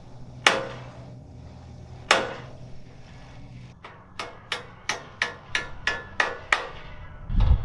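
Hammer blows on a stuck pin holding a Ferris wheel's spokes: two heavy strikes, then a quick run of about ten lighter strikes, roughly three a second. A low rumble comes in near the end.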